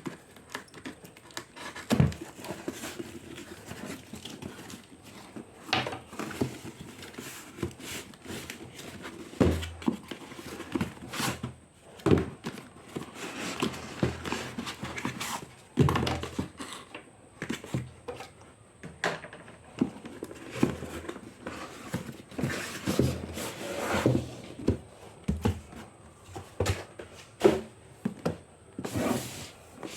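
A laptop's cardboard box and plastic packaging being handled by hand: irregular knocks and thumps with crinkling and rustling of wrapping.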